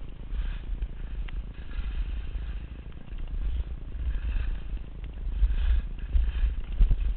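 Wind rumbling on the microphone of a camera carried down a ski slope, with skis hissing and scraping on packed snow in repeated swells as the skier turns.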